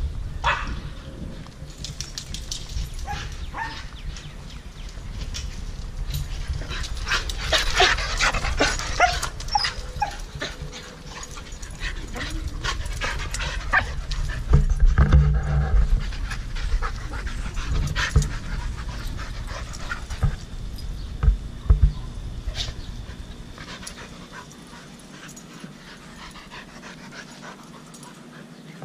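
Several dogs panting as they play together, busiest about eight to ten seconds in and quieter near the end.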